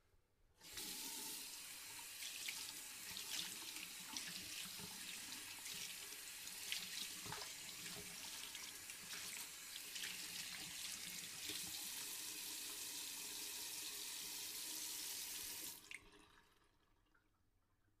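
Hands being washed under a running tap into a sink: the water comes on with a rush about half a second in, runs steadily with irregular splashing as the hands move through the stream, and is shut off about 16 seconds in.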